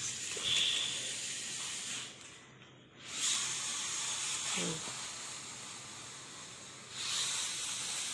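A steady hiss that fades away briefly between two and three seconds in, then returns and grows louder again near the end.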